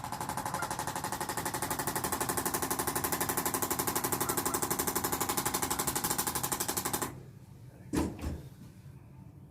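Handheld electric percussion device running with a rapid, steady pulsing for about seven seconds, then cutting off suddenly; a short thump follows about a second later.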